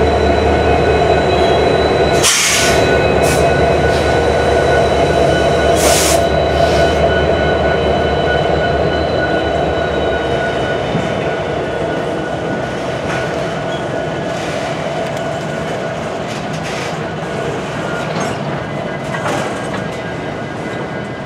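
Slow-moving freight train passing close by: trailing UP SD70ACe and Norfolk Southern Dash 9-44CW diesel locomotives rumble past, then double-stack container well cars roll by, with steady high-pitched squealing over the noise. Sharp metallic clanks about two seconds in and again about six seconds in, and the sound slowly fades as the locomotives move off.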